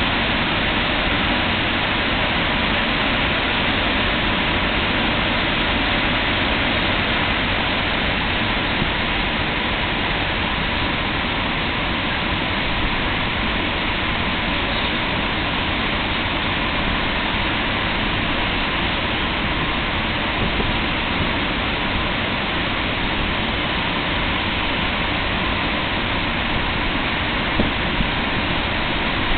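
EU07 electric locomotive standing at the platform with its cooling blowers running, a steady, even rushing noise.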